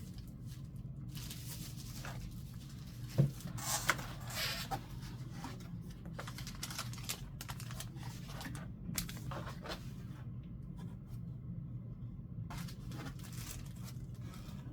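Packaging and accessories being handled while unboxing: rustling and crinkling, with a few sharp clicks and knocks about three to five seconds in, over a steady low hum.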